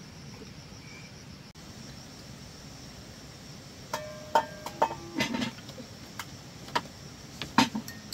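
Spoon clinking against small bowls and bowls knocking on a wooden floor, a run of short sharp clinks, some with a brief ring, starting about halfway through. Under it is a faint steady hum of insects.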